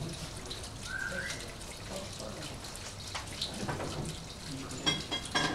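Steady trickling or splashing water, with a short rising bird chirp about a second in and a few sharp chirps or clicks near the end.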